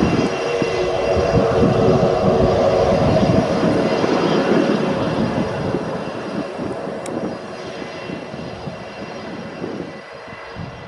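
Fokker 70 jetliner's twin rear-mounted Rolls-Royce Tay turbofans running loud with a steady whine during the landing rollout, then fading steadily over the last several seconds as the aircraft slows and rolls away.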